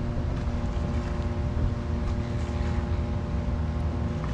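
A bass boat's outboard motor running at a steady speed: an even drone with several held tones over a low rumble.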